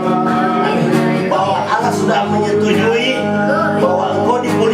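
Music: a song with acoustic guitar and a singing voice.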